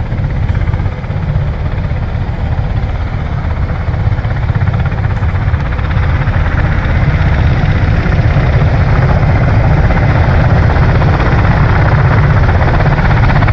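Bell-Boeing V-22 Osprey tiltrotors running on the ground, a steady deep rumble of turboshaft engines and proprotors that grows louder about seven seconds in as the aircraft spool up.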